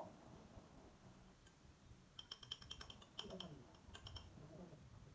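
Faint, light clinking of chopsticks and tableware against bowls and dishes during a meal: a quick run of small ringing clicks starting about two seconds in and lasting about two seconds.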